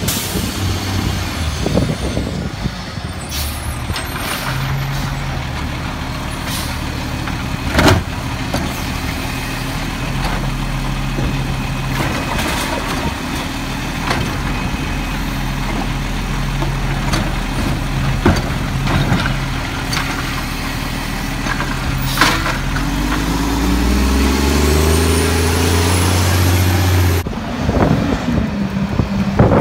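Mack MR AutoReach side-loader garbage truck's diesel engine running while its automated arm lifts and tips a recycling cart, with a few sharp knocks from the cart. Near the end the engine revs up as the truck pulls forward, then drops back.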